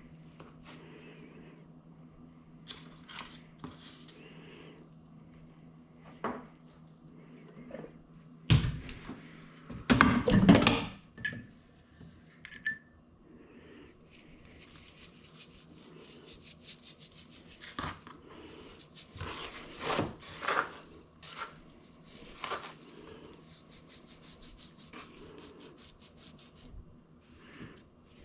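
Kitchen food-prep handling: scattered knocks, rubbing and clinks of utensils and dishes against a wooden surface, with a cluster of loud knocks a little past a third of the way through. A low steady hum sits under the first part.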